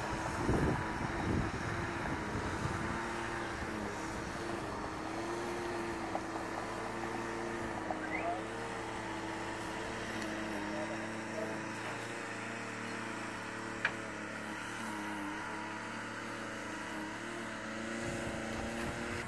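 Steady mechanical hum, like a motor or engine running, with a few held tones that waver slightly in pitch; a single sharp click about 14 seconds in.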